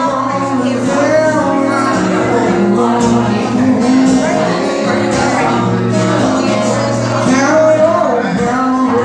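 Man singing live while accompanying himself on a cutaway acoustic guitar.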